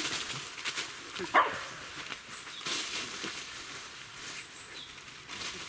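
Dogs playing and running through dry fallen leaves, their paws crunching and rustling the leaves, with one sharp bark about a second and a half in.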